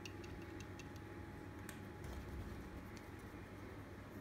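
Faint, irregular light ticks of a thin wooden stick knocking against small glass cups while stirring pH indicator drops into water samples.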